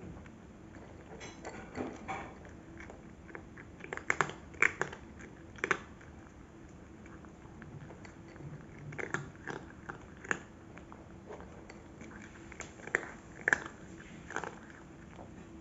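Cat chewing dry kibble: irregular clusters of sharp crunches with quieter pauses between them.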